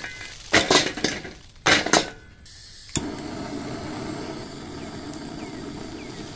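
Lumps of charcoal dropped into a metal kettle-grill bowl, clattering twice in the first two seconds. About three seconds in comes a click as a butane blowtorch lights, then the torch flame hisses steadily as it fires the charcoal.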